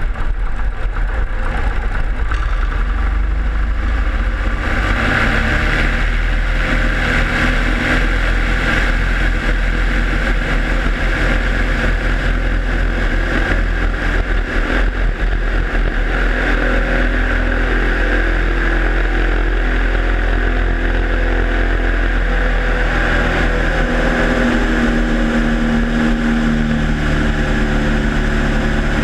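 The Maule M5-235's 235-horsepower Lycoming six-cylinder engine and propeller run steadily at high power through a takeoff roll on grass, with wind rushing over the wing-mounted microphone. The noise swells about five seconds in, and the engine note shifts a little near the end as the plane lifts off.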